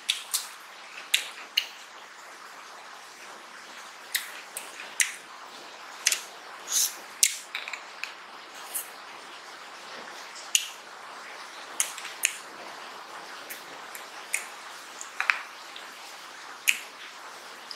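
Close-miked eating of mutton curry and rice by hand: wet chewing, lip smacks and squishy finger sounds, heard as irregular sharp wet clicks about one or two a second.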